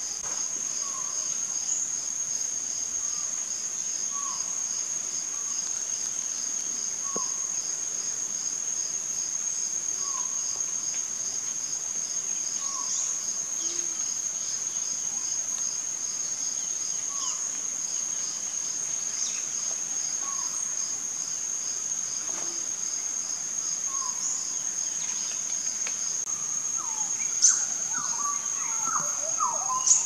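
Steady, high-pitched insect chorus, with short faint calls recurring every second or two beneath it. A quick flurry of short chirping bird calls comes near the end.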